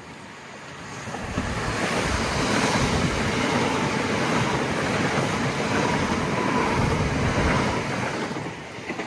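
Southern Electrostar electric multiple-unit train passing through the station: a rushing noise builds about a second in, stays loud for several seconds with a faint steady whine, then fades near the end.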